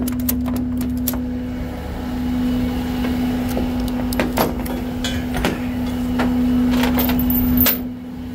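Steady hum of the Peterbilt rollback tow truck running, louder through the middle and dropping off sharply near the end. A quick run of clicks fills the first second, and a few scattered knocks follow.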